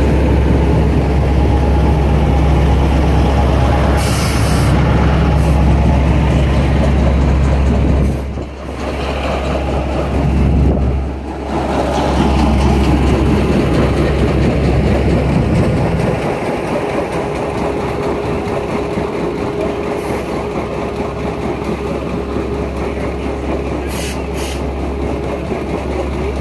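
Diesel semi-truck running as it slowly pulls a belly-dump trailer that is dropping hot asphalt through its bottom gates. There is a steady low rumble that drops away about two-thirds of the way through.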